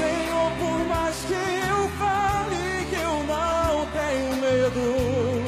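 Live band performance of a Portuguese-language gospel song: a man sings the lead with vibrato over electric guitar, bass and drums.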